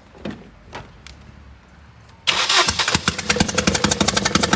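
Car engine starting a little past halfway and running with a rapid, even ticking. The engine has a loose spark plug, which the mechanic names as the fault. Before the start there are a few soft clicks.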